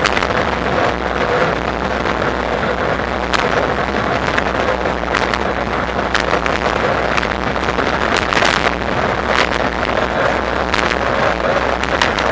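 Steady riding noise from a Bafang BBSHD mid-drive electric bike under way: wind on the microphone and rolling noise, with scattered sharp clicks and rattles throughout.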